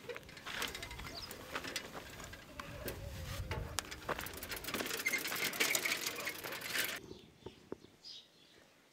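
A bicycle rattling and clicking as a rider mounts and sets off over dry dirt, with a few faint bird chirps. The sound drops abruptly about seven seconds in to quiet outdoor air.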